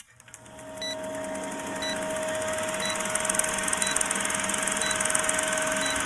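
Electronic intro sound: a steady hum and hiss swelling in over the first two seconds, with a short high beep about once a second.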